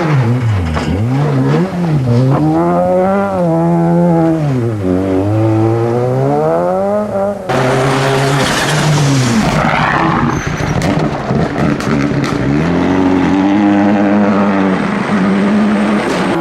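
Rally car engine at full throttle, its revs climbing and dropping repeatedly through gear changes and lifts. About halfway through the sound changes abruptly to a noisier mix: the engine over a loud hiss of tyres sliding on loose gravel.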